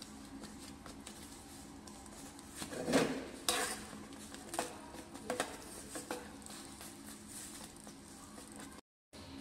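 Spatula scraping and knocking against a nonstick frying pan while stirring thick halwa. The loudest scrapes come about three seconds in, followed by a few lighter knocks. The sound cuts out briefly near the end.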